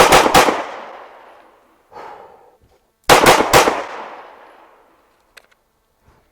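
A 9 mm Glock 19 pistol fired in two quick strings of three shots, about three seconds apart, each string trailing off in echo.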